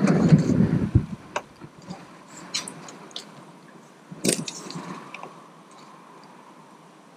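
A loud burst of rumbling noise in the first second, then a few light clicks and taps from small fishing tackle being handled as a pole rig is baited.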